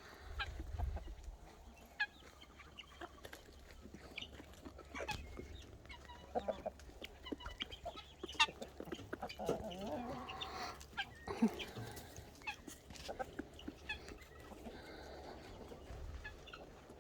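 Backyard hens clucking with short, scattered calls, busiest in the middle stretch, over a low steady rumble.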